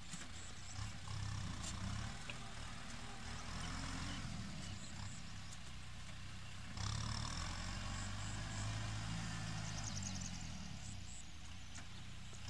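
Kubota tractor's diesel engine running steadily under load as it pulls a disc plough through dry ground. It grows louder about seven seconds in.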